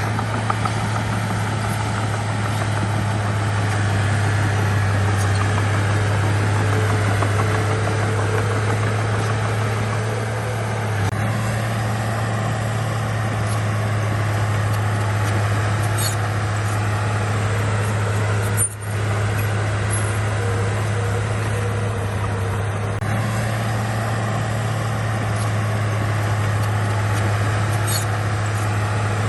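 Diesel engine of heavy earthmoving equipment running steadily, with one momentary drop in sound about two-thirds of the way through.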